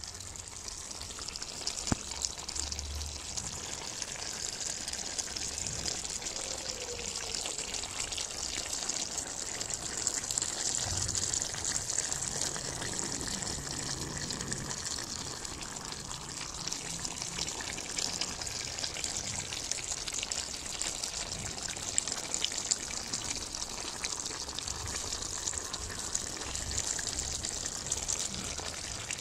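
Aloo methi chicken curry simmering in a pan, a steady bubbling sizzle with a few louder pops.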